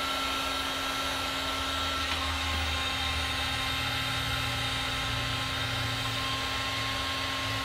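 Electric heat gun running steadily, its fan motor whirring and blowing hot air onto clamped acrylic to soften it for bending. The whine drops slightly in pitch about two seconds in.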